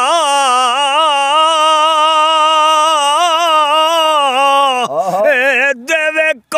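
A man singing a Punjabi Sufi kalam unaccompanied, holding one long wavering, ornamented note for almost five seconds. The note breaks near the end and the voice picks up again briefly.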